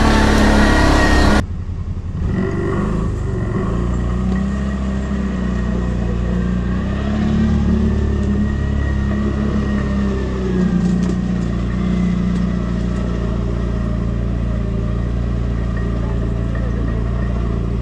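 ATV engine running at low revs under way, its pitch rising and falling gently with the throttle; the sound drops abruptly about a second and a half in, to a steadier, slightly quieter run.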